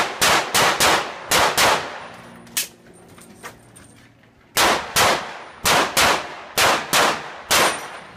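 Pistol shots fired in rapid strings at about three a second, each with a short echo: about six shots in the first second and a half, a pause of about three seconds, then about nine more from about four and a half seconds in.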